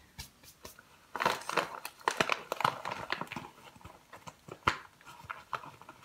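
Kraft paper packaging crinkling and rustling in short bursts, with sharp clicks and taps, as small wax melts are handled. The handling is busiest about a second in, and there is one sharp click later on.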